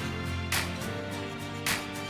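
Background music with a steady beat, a sharp hit about every second over held notes.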